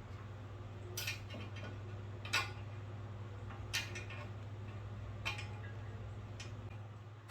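Sharp metallic clicks of tools and parts knocking together while a bench disc sander is being assembled, five of them about every second and a half, over a steady low hum.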